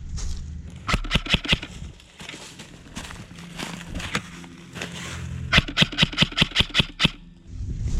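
Airsoft electric gun (AEG) firing two quick strings of shots, about six shots a second or so after the start and about ten more near the end, at roughly six to seven shots a second.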